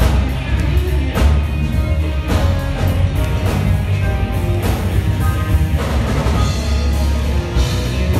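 Live band music: electric guitar over a bass guitar and a drum kit with cymbal strikes.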